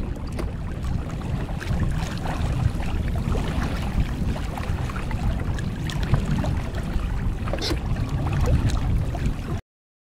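Wind rumbling unevenly on the microphone out on open water, with small waves lapping and splashing, one splash louder near the end. The sound cuts off abruptly to silence just before the end.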